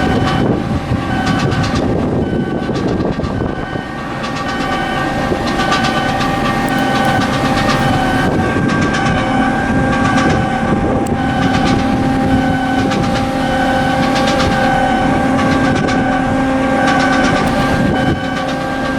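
Loud machinery running steadily: a held pitched hum with rumbling underneath and repeated short clicks and clatters.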